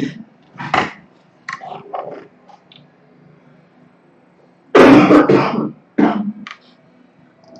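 A girl coughing with a cold: a single cough about a second in, a few smaller coughs and throat-clearing sounds, then a harder, louder cough about five seconds in, followed by one more short cough.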